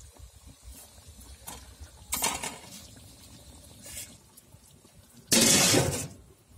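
Aluminium lid put on a large aluminium cooking pot: a loud metallic scrape and clatter lasting just under a second near the end. Two shorter, quieter noises come earlier, about two and four seconds in.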